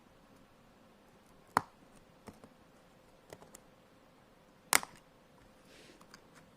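Plastic laptop keycaps snapping off their clips: two sharp snaps, one about a second and a half in and a louder one near the five-second mark, with a few light clicks between them and a soft scrape near the end.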